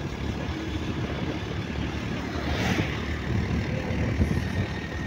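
Wind rushing and buffeting the microphone over the running engine and road noise of a motorcycle riding along a highway, with a brief hiss a little past halfway.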